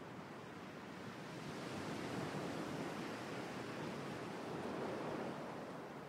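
A steady, tone-less rushing noise like surf or wind, swelling gently over the first couple of seconds and easing a little near the end.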